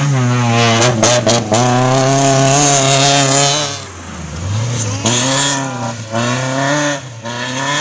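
Rally cars' engines running at high revs as they drive past in turn. The note dips briefly about four seconds in, then a second engine note comes up as the next car passes.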